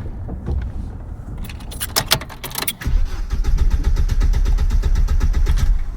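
Car engine being cranked and struggling to start: a low rumble, a few sharp clicks about two seconds in, then a loud, even run of rhythmic cranking pulses for about three seconds.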